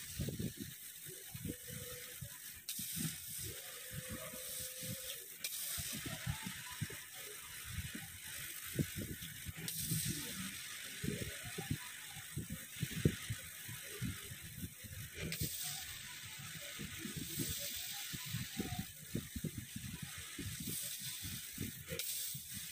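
CO2 laser cutter's gantry motors buzzing and whining in short rising and falling tones as the laser head traces small curved cuts in a plastic sheet, over a steady hiss.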